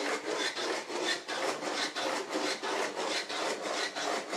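Rope-pulled wooden curd churner: the churning stick spins back and forth in its wooden frame, making a quick, even, rhythmic rasping rub as it churns curd into butter.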